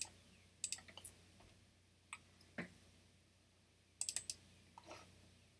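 Light clicks of a computer mouse, scattered singly and in quick pairs, with a fast run of about four clicks near the end.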